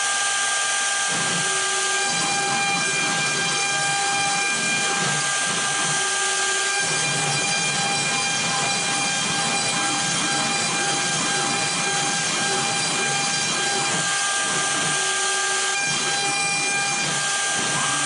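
CNC router spindle running with a 90-degree V-bit: a steady high whine over a loud hiss, with a lower rumble that comes and goes.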